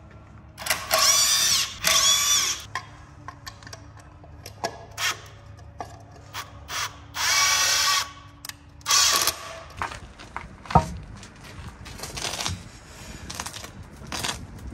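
A handheld power tool run in four short whirring bursts of about half a second to a second each, with scattered clicks between them and a single sharp knock about eleven seconds in.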